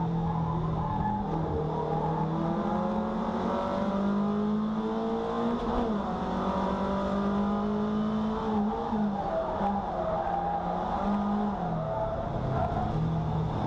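Race car engine running hard at speed, heard from on board, its note stepping up and down several times as it shifts and comes on and off the throttle, over steady tyre and road noise.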